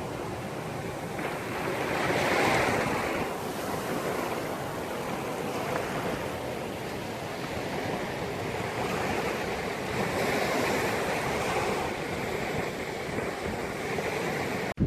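Sea surf washing in continuously, swelling louder about two seconds in and again near ten seconds.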